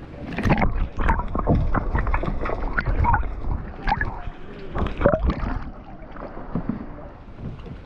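Sea water splashing and gurgling close to the microphone, with wind buffeting it, in uneven sudden bursts that ease off in the last couple of seconds.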